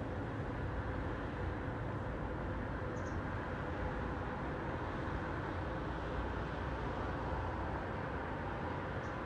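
Steady hum of distant city traffic, low and even, with a faint steady tone running through it. Two brief, faint high chirps come about three seconds in and again near the end.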